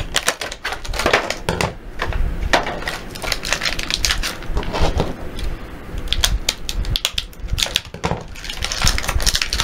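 Stiff clear plastic blister packaging crackling and crinkling as it is cut and pulled apart with scissors, a dense run of irregular sharp clicks and snaps.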